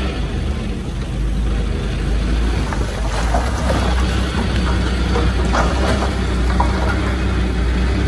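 Komatsu D20P bulldozer's diesel engine running steadily under load, with scattered metallic clanks and rattles from about three seconds in.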